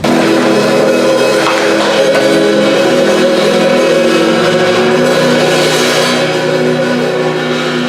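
Intro music: sustained instrumental chords with guitar and drums, starting abruptly just before and holding steady and loud.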